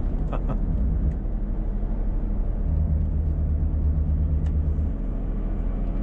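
Renault truck engine heard from inside the cab, pulling a heavily loaded trailer. The low engine hum grows stronger about three seconds in and eases back about two seconds later.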